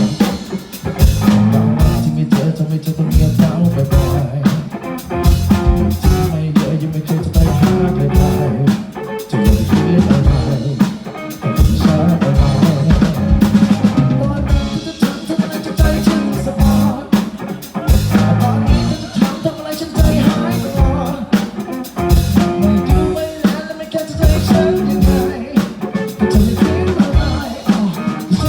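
Live band playing a pop-rock song, led by a drum kit beat with bass drum and snare rimshots over bass and other instruments.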